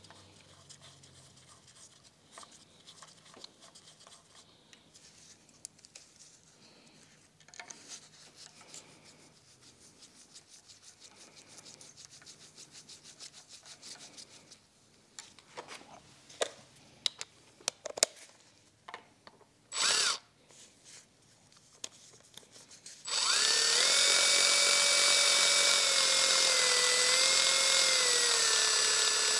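Faint clicks and rubbing of hand work on small metal parts, then a short blip and about six seconds of a cordless ratchet's motor whining steadily, its pitch stepping down slightly near the end. The ratchet is running in a left-hand-threaded bolt on a BMW M54 double VANOS unit that will not tighten down.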